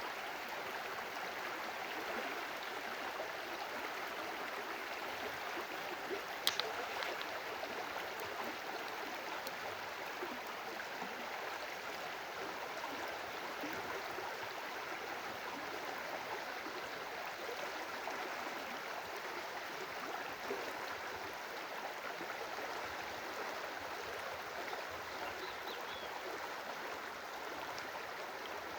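A stream of running water, a steady, even babble throughout, with one short sharp click about six and a half seconds in.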